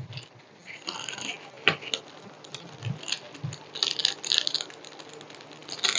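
A diamond painting canvas with its plastic cover being handled and smoothed out: scattered light crinkles and clicks, busiest about four seconds in.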